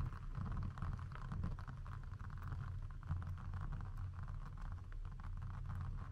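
Orbeez water beads tumbling out of a plastic box and landing in a plastic tray, a soft patter of many small irregular ticks. Under it runs a steady low hum.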